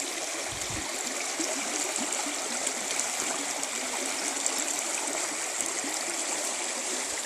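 Creek water running and bubbling over rocks, a steady rush.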